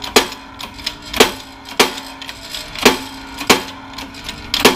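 Six sharp clacks at fairly even spacing as the bearing press is worked to push a new front wheel bearing down into its housing, over a steady hum.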